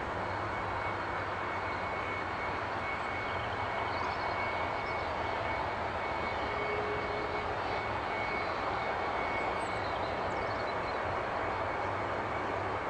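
Jet airliner engine running steadily: an even, continuous rush with a thin steady whistle over it.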